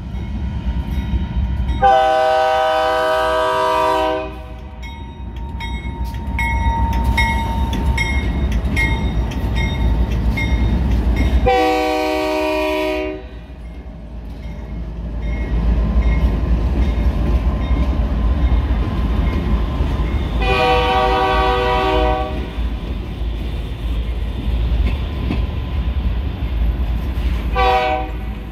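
Freight train's lead diesel locomotive sounding its multi-chime air horn at a grade crossing: long blasts about 2, 12 and 21 seconds in and a short one near the end. Under the horn, the locomotives and freight cars rumble steadily past. Between the first two blasts a crossing bell dings about twice a second.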